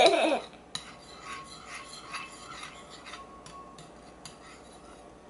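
A utensil stirring glue and water in a bowl, scraping against its sides in quiet, repeated rasping strokes.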